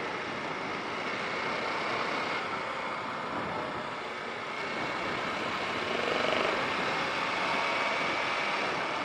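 Steady wind rush over a helmet-mounted camera while riding a Kawasaki KLR250 motorcycle at road speed, with the bike's single-cylinder engine running underneath.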